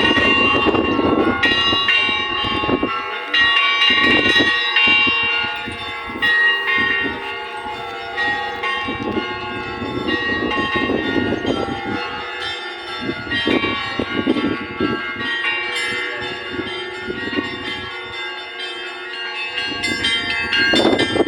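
Russian Orthodox church bells rung together in a continuous festive Easter peal. Several bells of different pitches sound at once, with lighter bells struck over and over above the ringing of the larger ones.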